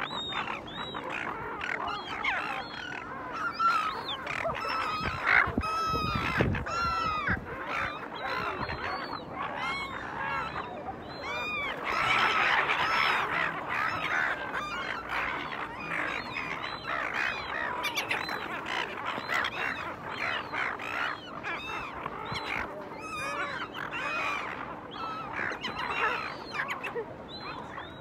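A flock of silver gulls calling all at once, many short harsh squawks overlapping without a break, with a brief low rumble about six seconds in.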